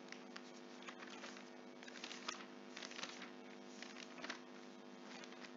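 Near silence on a video call: a faint steady hum with a few scattered faint clicks, and no one reciting.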